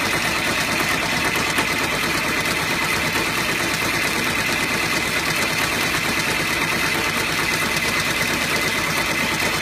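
Multi-needle embroidery machine stitching into a terry towel: a steady, fast, even mechanical chatter of the needle bar with a constant high whine.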